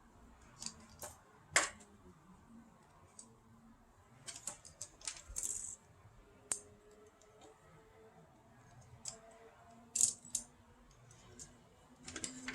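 Tower fan's hard plastic and metal parts being handled: irregular small clicks and clinks, the sharpest about a second and a half in and a close pair near ten seconds.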